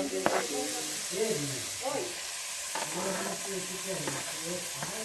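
Garlic and onion frying in a pot, sizzling with a steady hiss, as chopped vinagreira (roselle) leaves are scraped in off a cutting board with a metal ladle, with a few short scraping clicks.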